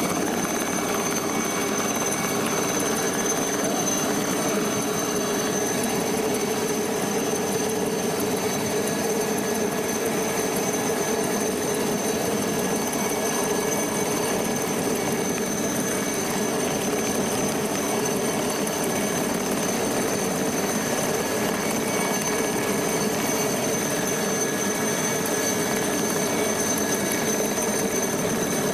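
Helicopter hovering close by, running steadily with a high whine over its rotor noise.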